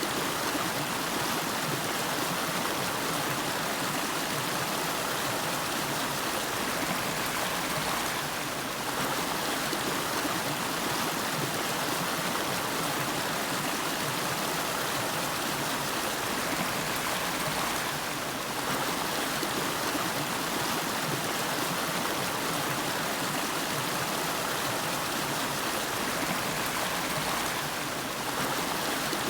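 A river stream flowing over rocks, a steady even rush of water with no pauses.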